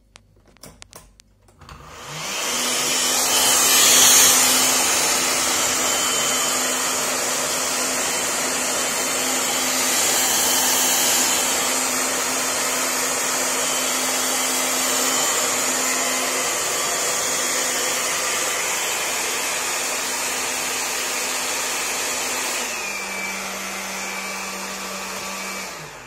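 Bosch Athlet cordless stick vacuum switched on about two seconds in and running steadily with a high whine and rushing air, on its newly rebuilt battery pack as a test after the repair. About 23 seconds in the motor note drops a step, and it is switched off at the end.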